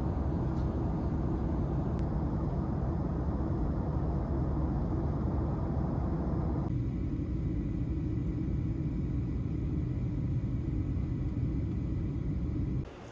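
Steady low rumble of a moving vehicle heard from inside. The higher hiss drops away about halfway through, and the rumble cuts off suddenly near the end.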